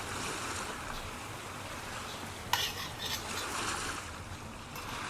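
Herbal broth being poured from a container into a whole chicken in a dish, a steady splashing hiss, with two sharp clinks of crockery about half a second apart near the middle.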